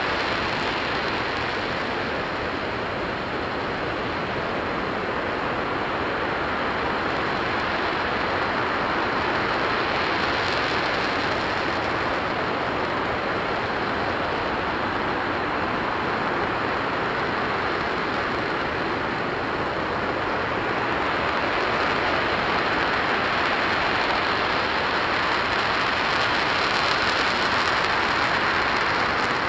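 RS-25 liquid-hydrogen/liquid-oxygen rocket engine firing steadily on a test stand: a continuous, loud rushing noise that keeps the same pitch and level throughout.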